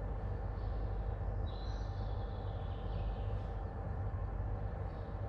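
A steady low background hum, with a few faint, short higher-pitched sounds now and then.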